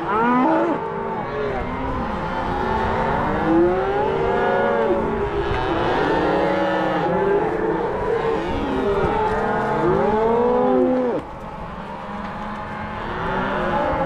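A herd of cattle bawling, several long moos overlapping one another; the calling eases off somewhat about three seconds before the end.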